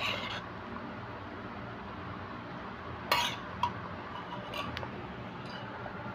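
Metal spoon scraping and clinking against the inside of a clay mortar as pounded long-bean salad is scooped out onto a plate. A clink at the start, a louder pair of clinks about three seconds in, and a few lighter taps after that.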